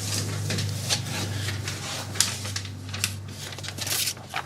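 Rubbing and scraping with scattered light clicks, over a steady low hum.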